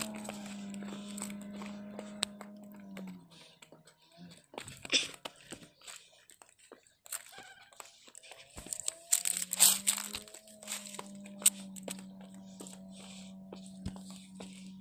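Footsteps crunching over loose stones and gravel, with handling rustle, in irregular crackly steps that are loudest about 5 s and 10 s in. A steady low hum runs underneath, dropping out about 3 s in and returning about 8 s in.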